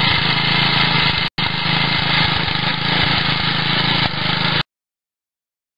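Small petrol engine of a walk-behind rototiller running steadily, with a momentary break just over a second in. It cuts off suddenly near the end.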